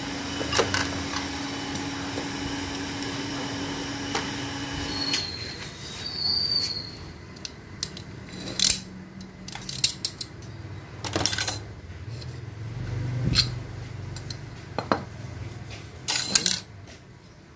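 Metal clutch plates from an automatic transmission's clutch pack clinking and clattering as they are handled, a string of separate sharp clinks. A steady hum runs under the first five seconds or so and then stops.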